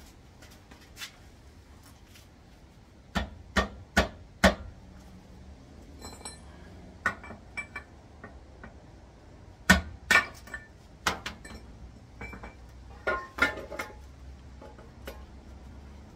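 Metal gearbox parts and tools clinking and knocking as they are handled and set down, in irregular clusters of sharp strikes. Some strikes ring briefly.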